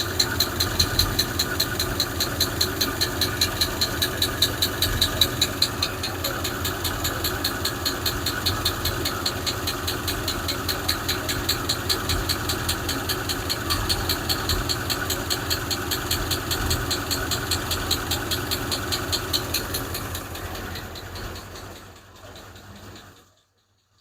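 Hemi V8 idling with a fast, regular ticking clatter, which the owner puts down to a lifter still flapping after fitting a VVT solenoid elimination plug. The sound fades out near the end.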